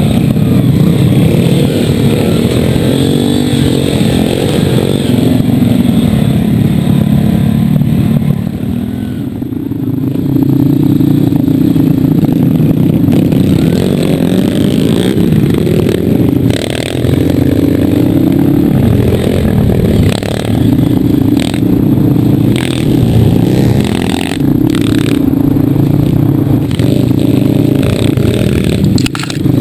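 Onboard sound of a trail motorcycle's engine riding a rough dirt track, its pitch rising and falling with the throttle. Sharp knocks and rattles from the bike bouncing over the ruts come in the second half.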